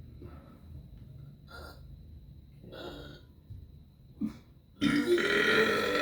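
A person's long, loud burp with a pitched, wavering tone begins about five seconds in and is still going at the end. Before it come a few quieter breathy sounds.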